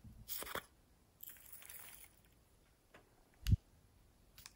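Small plastic slime pots being handled close to the microphone: a short scraping rustle at the start, a longer softer scrape from about one to two seconds in, and a single soft low thump about three and a half seconds in.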